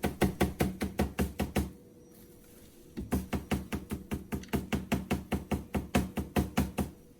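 Shop vacuum filter being knocked repeatedly against a hard surface to shake the drilling dust out: quick knocks, about five a second, that stop for about a second a couple of seconds in and then resume.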